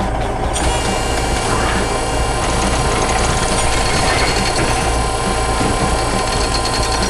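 Construction machinery engine running steadily: a continuous mechanical drone with a low hum underneath.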